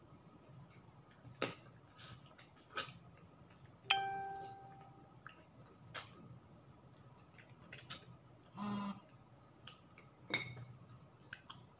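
Quiet eating sounds: chewing and mouth clicks as rice and chicken adobo are eaten by hand from a ceramic plate. About four seconds in, a knock on the plate sets it ringing briefly, and a short hummed 'mm' comes near nine seconds.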